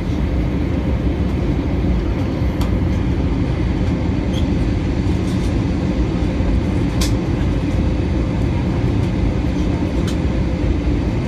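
Steady rumble of an Airbus A320 cabin, engine and airflow noise, with a few short sharp clicks, the clearest about seven seconds in.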